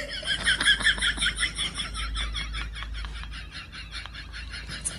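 Kitten suckling on a person's skin: a fast, rhythmic run of small wet sucking clicks, about six a second, growing fainter toward the end.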